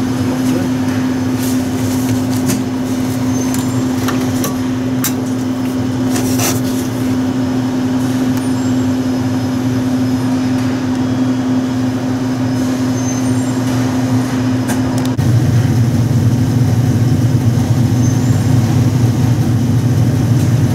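Daewoo washing machine running: a steady mechanical hum with a few light clicks in the first several seconds. About fifteen seconds in, the hum drops lower and gets louder.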